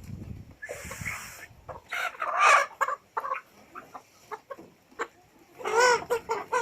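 Kienyeji chickens clucking and calling, with a loud call about two seconds in and another near the end, and scattered short clicks between.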